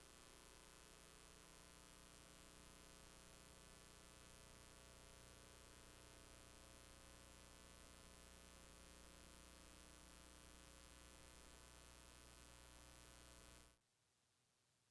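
Near silence except a faint steady electrical mains hum with a ladder of overtones; it cuts off suddenly near the end.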